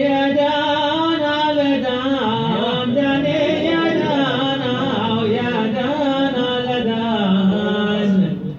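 Hadhrami dan singing: male voices drawing out long, winding melismatic lines on the dan syllables, breaking off briefly near the end.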